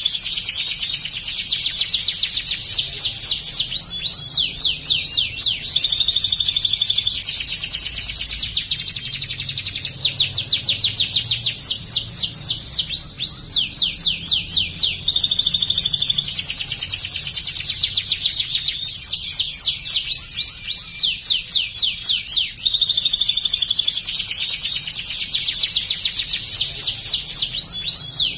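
White domestic canary singing almost without pause: long phrases of rapid high trills and fast sweeping notes, broken only by short gaps. Its song is trained on ciblek (bar-winged prinia) material.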